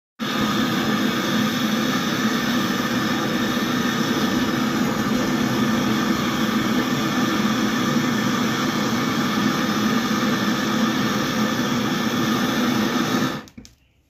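Handheld canister gas torch burning steadily as it heats the copper pipe at a refrigerator compressor for brazing. It cuts off suddenly near the end.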